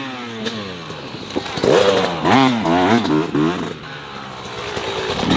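Two-stroke motocross bike engine revving on the track: the pitch drops off at first, then climbs and falls several times in quick succession as the throttle is worked, loudest in the middle, before settling to a lower, steadier run near the end.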